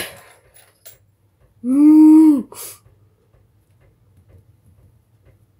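A single short voiced sound, under a second long, about two seconds in, arching up and then down in pitch, followed by a brief rustle.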